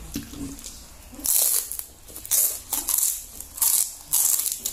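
Crisp fried wonton being bitten and chewed close to the microphone: four loud crunches, roughly a second apart.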